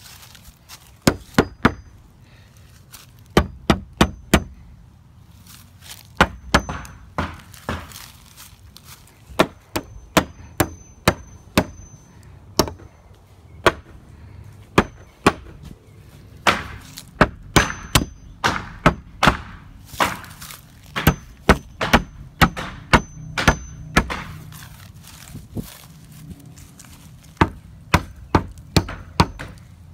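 Claw hammer striking nails into weathered wooden fence boards, in runs of several quick blows separated by short pauses. Some strikes leave a faint high ring from hammer on nail head.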